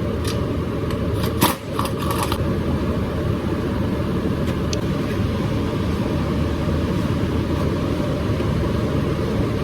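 A vehicle running with a steady low rumble, with a few clicks and knocks about one to two seconds in.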